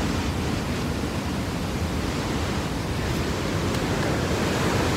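Steady rush of fast-flowing water, an even unbroken roar.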